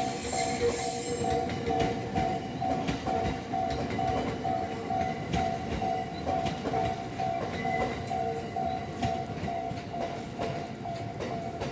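Japanese level-crossing warning bell ringing in an even ding-ding rhythm, about two to three strikes a second, while an electric commuter train rolls past with its wheels clacking over the rail joints.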